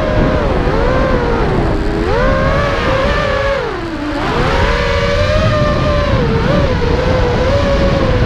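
The Skitzo brushless motors and 5-inch propellers of a QAV-R FPV racing quadcopter, heard from its onboard camera: a buzzing whine whose pitch rises and falls with the throttle. The pitch and loudness sag about four seconds in as the throttle eases off, then climb back, over a rushing noise of air.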